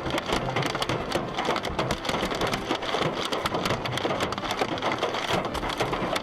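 Storm precipitation pelting a hard surface: a dense, rapid, steady patter of many small sharp impacts.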